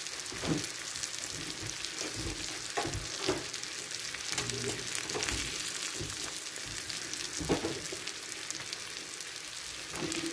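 Ribeye steak sizzling steadily in its own juices and fat on the hot plate of an open electric waffle maker, with a few louder crackles spread through.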